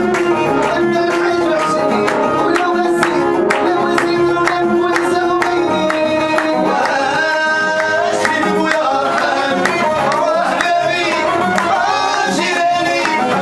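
Live Moroccan chaabi music: a violin played upright on the knee and an electronic keyboard over a steady percussion beat, with singing.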